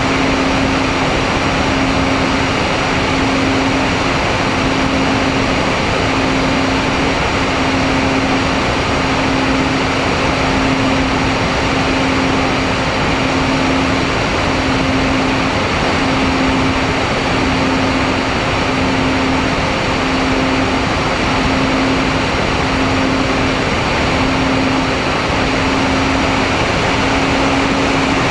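MFD 1800 twin RC plane in flight, its twin motors and propellers giving a steady hum that swells and fades about every second and a quarter, over a constant rush of air on the onboard camera.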